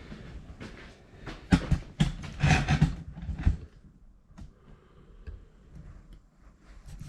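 Knocks and rattles of metal parts being handled on a sheet-metal tool chest while its caster wheels are unbolted, loudest in a cluster from about one and a half to three and a half seconds in, then lighter scattered ticks.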